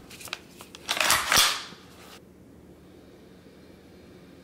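Gloved hands handling an IWI X95 bullpup rifle: a few light clicks, then a brief rustling clatter with a knock about a second in, then quiet.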